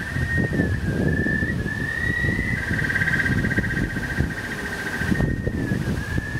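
A high, steady electronic tone of two close pitches, slowly bending up and down, played from the speakers built into The Morning Line sound-art pavilion. Wind rumbles on the microphone beneath it.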